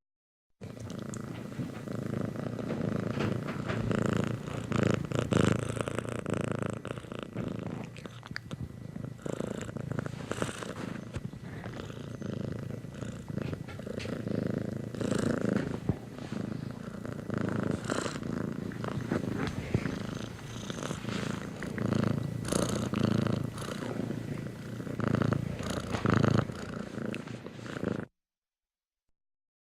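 Domestic cat purring close up, a continuous low rumble that swells and eases with its breathing. It stops a little before the end.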